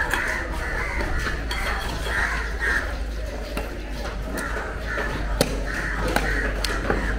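Cleaver chopping fish on a wooden block: a few sharp knocks in the second half, over steady background noise and a low hum.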